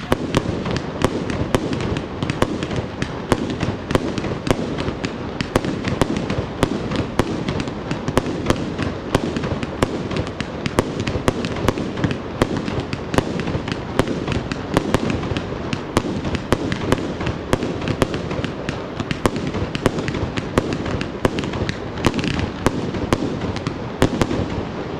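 Fireworks going off in a continuous barrage: sharp bangs about three a second over a dense crackling hiss.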